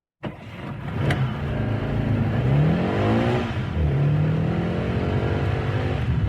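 Sports car engine accelerating: its pitch rises steadily, drops sharply about three and a half seconds in as it shifts up a gear, then climbs again. A sharp click comes about a second in.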